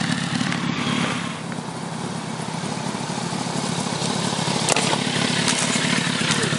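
Sport motorcycle engine running at low revs, easing off about a second and a half in and then building again. A few sharp clicks sound in the second half.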